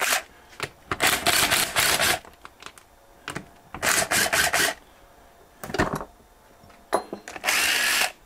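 Cordless impact driver hammering in several short bursts, each a second or less, as it runs bolts into the fitting block of a car A/C compressor.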